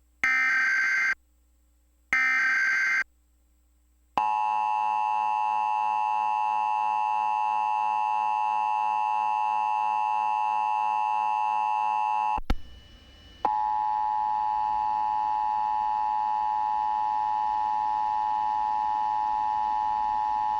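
Emergency Alert System test signal. First come the last two of the SAME header's data bursts, each a shrill buzzy warble just under a second long. Then the EAS attention signal follows, a steady harsh tone held for about eight seconds, which breaks off briefly with a crackle and resumes for about eight more seconds.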